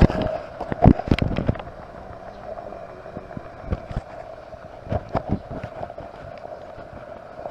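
Knocks and thumps from a handheld camera being handled as its holder walks, loudest in the first second and a half, with a few more in the middle, over a faint steady hum.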